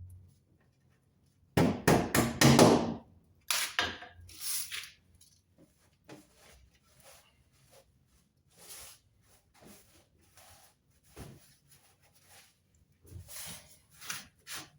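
Hammer knocking in quick runs, wall plugs being tapped into drilled holes through the metal flashing, loudest about two seconds in, followed by fainter scattered clicks and handling sounds.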